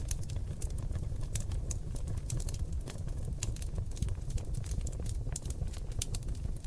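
Oak log fire crackling in a fireplace: a steady low rumble of flames under many irregular sharp pops and snaps.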